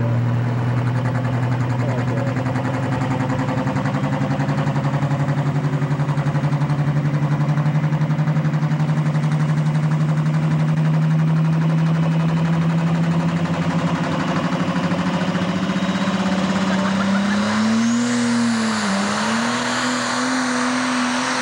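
Turbocharged diesel engine of a Pro Stock pulling tractor running steadily at idle, its pitch slowly creeping up. About 17 seconds in it revs up hard with a rising high whine from the turbocharger as the tractor launches on its pull against the sled.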